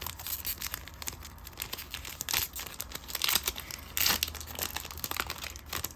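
Foil wrapper of a Pokémon card booster pack crinkling as it is handled, a string of irregular crackles and small clicks.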